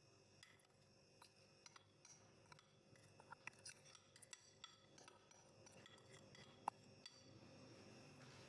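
Near silence with faint, scattered light clicks and clinks of kitchen utensils on glass or dishes, and one sharper click about seven seconds in.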